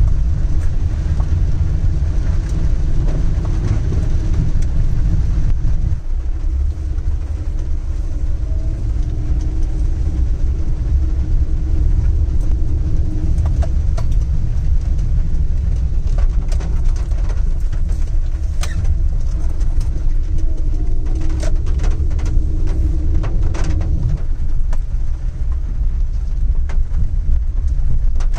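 Car driving on a wet road, heard from inside the cabin: a steady, loud low rumble of engine and tyres, with scattered light ticks.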